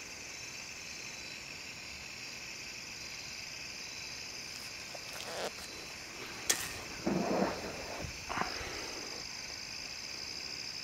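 Steady high insect chorus. About two thirds of the way through, close handling noises cut in: a sharp click, then a short rustling scrape and another brief rustle.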